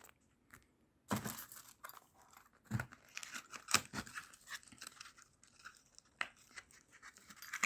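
Packaging being torn and crinkled open by hand: irregular rustling with a few sharp clicks, starting about a second in.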